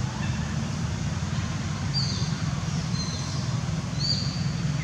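Outdoor ambience: a steady low rumble with a few short, high bird chirps about two, three and four seconds in.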